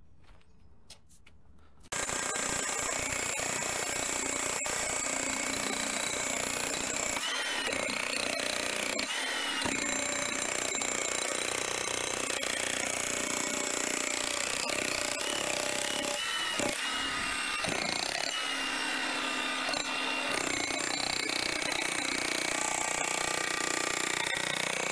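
A power tool running continuously under load, starting abruptly about two seconds in, its motor pitch wavering as it works.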